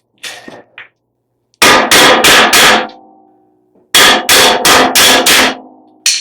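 Hammer blows on steel: two runs of four or five quick strikes, a little over a second apart, each run leaving the metal ringing as it dies away. The hammering is driving a tight bolt through a snowplow mounting bracket.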